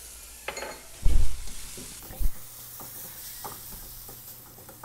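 Kimchi and ground pork sizzling in a hot wok, with a spatula scraping and knocking against the pan as it is stir-fried; a louder thump about a second in.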